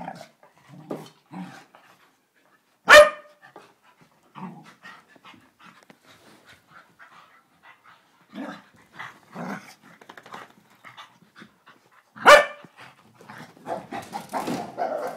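Dogs roughhousing in play, with short scattered barks and panting. Two much louder sharp barks come about three seconds in and again about twelve seconds in, and the noises crowd together near the end.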